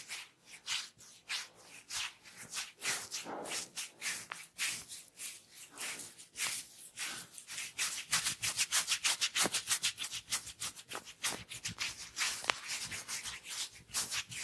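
Hair and scalp being rubbed in a head massage: a run of quick, rhythmic scratchy strokes that grow louder and closer together about eight seconds in.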